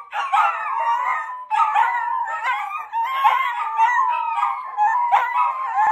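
Two long-haired dachshunds howling together. Their long, wavering howls overlap, with short gaps between them, while the owner is out of the house.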